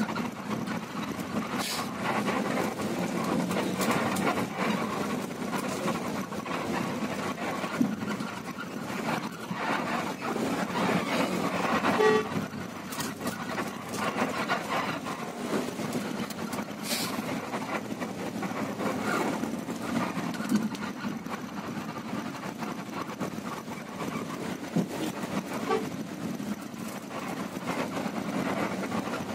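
Inside the cabin of a moving long-distance coach: the engine running with steady road noise and scattered clicks and rattles. A brief louder sound comes about twelve seconds in.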